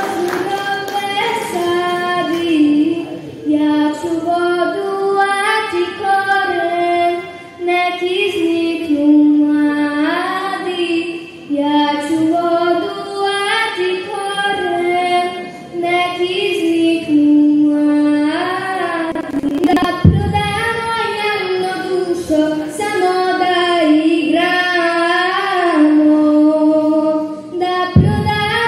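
A young girl singing solo into a stage microphone, one voice holding and bending notes phrase after phrase. Two brief low thumps cut in, about two-thirds through and near the end.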